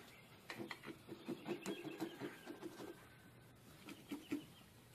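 Faint, quick low clucking of chickens, about three calls a second, with a few light scrapes mixed in.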